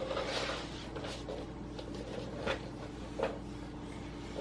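Quiet handling of Play-Doh toys: a soft rustle, then a few light clicks and taps about two and a half and three seconds in.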